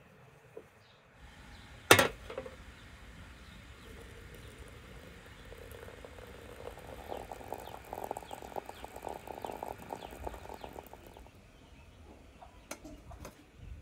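A sharp clink about two seconds in, then water poured into a glass teapot of flower petals, a steady pour that builds and runs for several seconds before stopping. Near the end come two light clinks as the teapot is set down, with faint bird chirps in the background.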